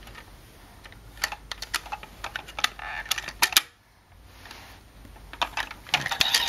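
Irregular sharp clicks and knocks of a hard plastic toy tractor being handled and tapped on, with a cluster of knocks near the end.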